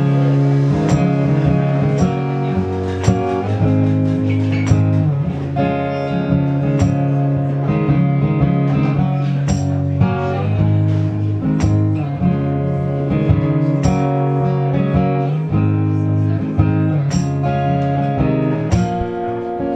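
Acoustic guitar played live: strummed chords ringing over low bass notes, with a sharp strum about once a second and the chords changing every few seconds.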